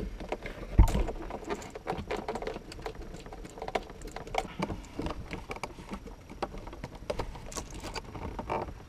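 Hands working a 1989 Lotus Esprit's dash binnacle back into place and fitting the speedometer cable beneath it: scattered clicks, knocks and rubbing, with one louder thump about a second in.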